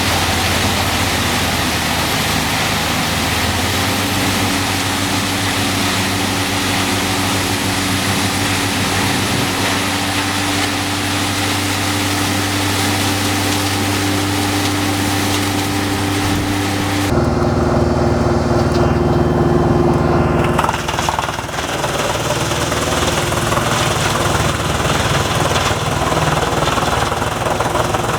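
Engine-driven wood chippers running loudly while shredding wood, a steady machine drone with a constant engine note. The sound changes abruptly about seventeen seconds in and again a few seconds later as one machine gives way to another.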